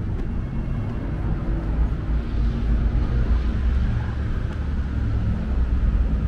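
City road traffic: motor vehicles running and passing, a steady low rumble.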